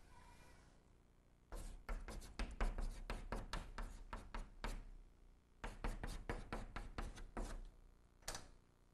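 Chalk writing on a blackboard: quick taps and short scrapes stroke by stroke. There are two runs of about two to three seconds each, the first starting about a second and a half in, with a brief pause between them and a single tap near the end.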